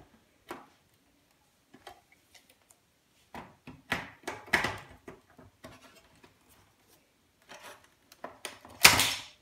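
Hand tools scraping and clicking against a VCR's circuit board and metal chassis as IC chips are pried off, in short separate scrapes with a louder scrape near the end.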